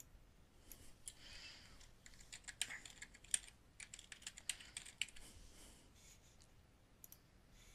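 Faint typing on a computer keyboard: a run of quick keystrokes that stops about two-thirds of the way through, followed by a couple of lone clicks near the end.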